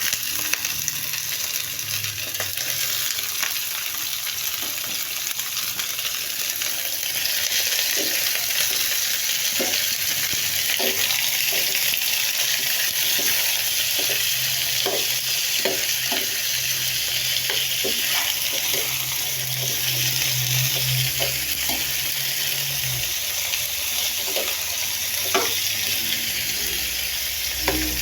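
Food sizzling in hot oil in a pan as it is sautéed, with a utensil stirring and knocking against the pan now and then.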